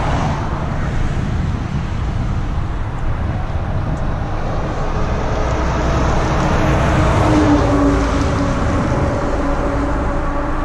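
Steady, loud rush of water flowing out below the Schiffenen dam. A faint hum swells and fades about seven seconds in.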